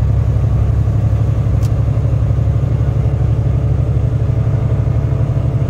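Semi-truck diesel engine running steadily, a loud, heavy low drone.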